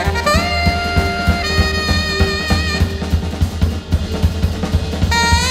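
Live jazz: a tenor saxophone plays long held notes over busy drum-kit playing, with a low steady bass tone underneath. The first note bends up into pitch and moves to a second held note. Drums carry on alone for a couple of seconds, then a new sax note slides in near the end.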